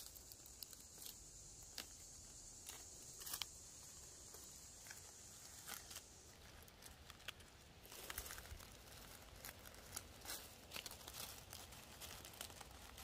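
Faint rustling and crackling of dry leaves and pine needles as black trumpet mushrooms are picked by hand, with scattered small snaps. A steady high-pitched hiss runs underneath for the first half and stops about six seconds in.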